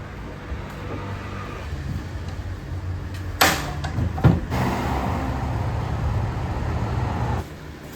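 A steady low motor hum, with a sharp clatter about three and a half seconds in, a second knock just after, and a rushing hiss that cuts off shortly before the end.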